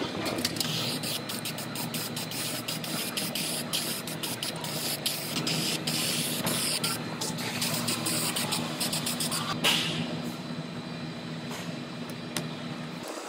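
Aerosol spray can hissing in bursts onto bare automotive sheet metal, with sharp clicks through the spray.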